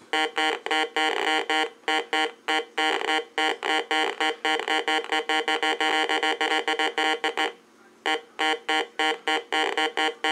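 Heathkit GD-1190 metal detector's electronic tone sounding in rapid on-off pulses as a coin is passed back and forth over its search coil: the detector's signal that a target worth digging is present. The tone breaks off for about half a second near the end, then starts pulsing again.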